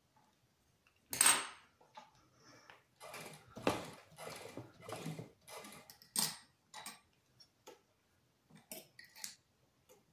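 Irregular clinks and crisp rustles as sailcloth is handled and positioned under a sewing machine's presser foot, with a sharp metallic clink about a second in and another about six seconds in.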